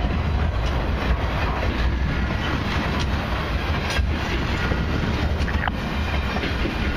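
Intermodal freight train's flatcars carrying highway trailers rolling past at speed: a steady rumble of steel wheels on the rails, with a few sharp clicks and clacks.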